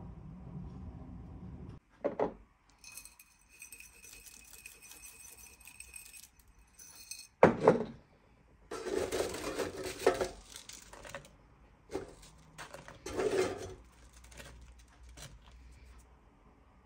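Dishes and utensils being handled on a kitchen counter: several sharp clinks and knocks, the loudest about halfway through, with short stretches of scraping and rustling between them.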